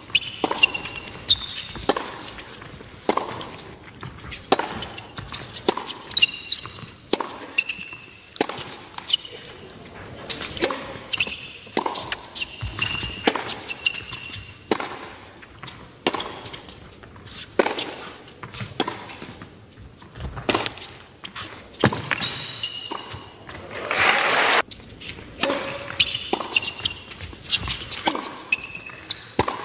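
Tennis rallies on an indoor hard court: a racket strikes the ball with a sharp pop about every second, and tennis shoes give short high squeaks on the court surface between shots.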